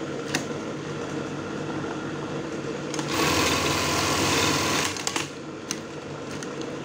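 Brother 814 industrial buttonhole machine's motor running with a steady hum. About three seconds in, the machine sews a test buttonhole in a loud, fast stitching run of about two seconds that ends in a few sharp clicks.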